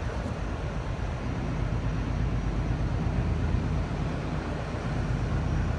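New Intercity Fleet double-deck electric train rolling past along the platform: a steady low rumble with an even hiss of running noise.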